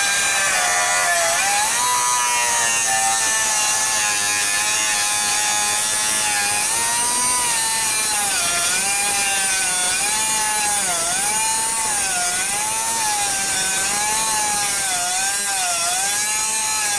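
Cutoff wheel running with a high, steady whine while cutting down through a bolt that has no head left, over a hiss of grinding. From about halfway on, the pitch dips again and again as the wheel bites and slows under load.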